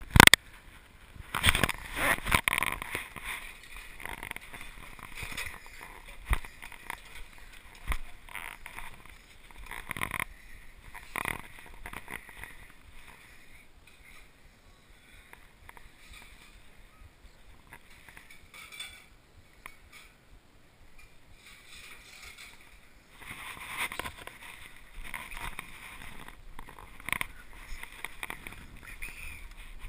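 Irregular knocks, bumps and rustling from a person climbing among pipes, wooden beams and a ladder, hands and clothing brushing and striking the metal duct and frame. Busier stretches come near the start and again near the end.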